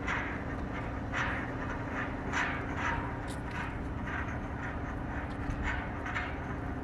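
Steady drone of an idling diesel engine, most likely the mobile crane on site, with a constant low hum. Irregular short hissing crackles sound over it.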